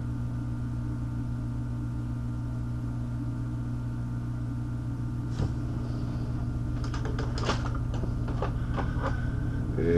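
Hot air rework station running, its handpiece blower humming steadily as it blows hot air onto a chip on a circuit board to melt the solder. A few light clicks and ticks come in between about seven and nine seconds in.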